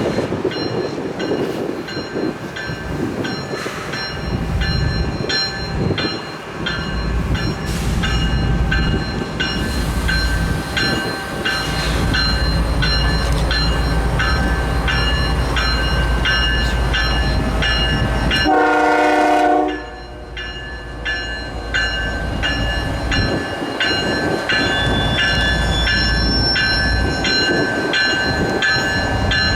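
Train rolling past, its wheels clicking rhythmically over rail joints with a steady high ringing. A single short train horn blast sounds about nineteen seconds in.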